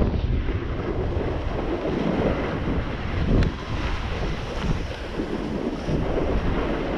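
Wind buffeting the microphone of a camera carried by a skier going fast downhill, mixed with the rushing hiss of skis sliding over packed, groomed snow.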